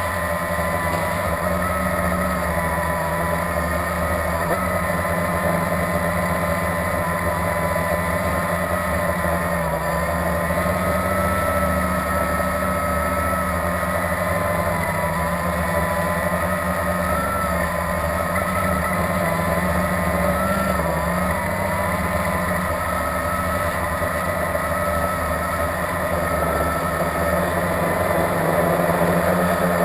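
Blade 350QX quadcopter's four brushless motors and propellers whirring steadily, heard close up from the camera on the drone. The whine's pitch wavers as the throttle changes, with brief rises about two-thirds of the way through.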